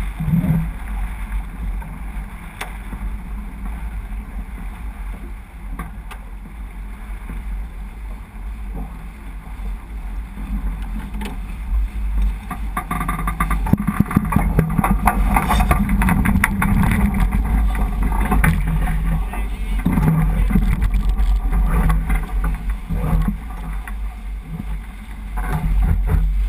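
Wind buffeting the microphone over water rushing along the hull of a J80 sailboat under way. It grows louder and busier from about halfway through, with short knocks and scuffs.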